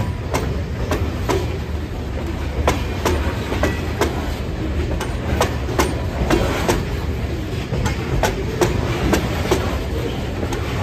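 A slow freight train of covered hopper cars rolling past: a steady low rumble with the wheels clicking and clacking over the rail joints, a couple of times a second at uneven spacing.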